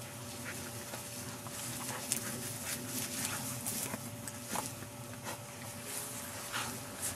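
Two Alaskan Malamutes playing and wrestling in long grass, with dog noises and scattered short rustles and knocks.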